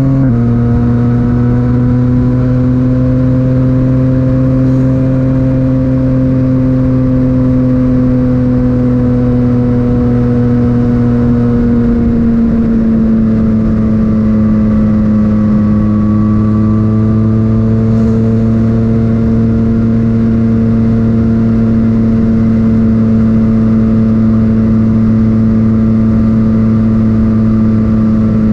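Yamaha MT-09's three-cylinder engine running through an Akrapovic titanium exhaust at a steady, even pitch that drifts slowly. The pitch steps down a little about twelve seconds in.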